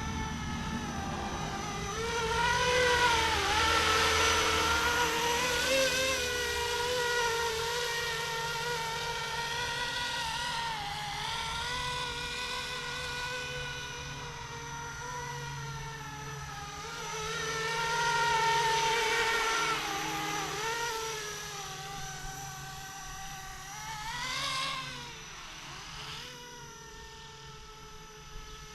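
Flishrc Little Bird 450 RC helicopter in flight: a continuous motor-and-rotor whine whose pitch swings and dips as it passes and turns. It grows loudest twice as it comes close, then fades near the end.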